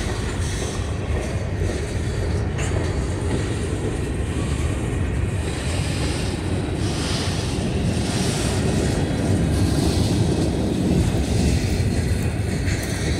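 Covered hopper cars of a freight train rolling past close by: the steady noise of steel wheels on the rails.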